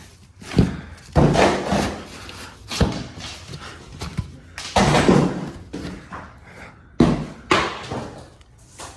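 Ceiling demolition: a run of sharp crashes and clatter as wood slats and ceiling tiles are torn down and hit the floor, about six hits, some trailing off in a brief rattle of debris.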